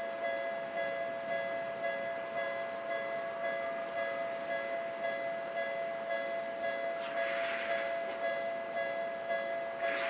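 Japanese railway level crossing alarm ringing, its electronic two-tone bell pulsing in steady even beats about two and a half times a second. Two short bursts of hissing noise cut in, about seven seconds in and again near the end.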